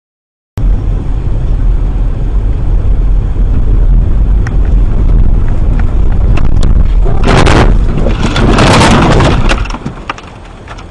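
Car dash-cam audio: a loud low rumble of engine and road noise starts suddenly, with two loud bursts of noise about seven and eight and a half seconds in, after which it drops much quieter.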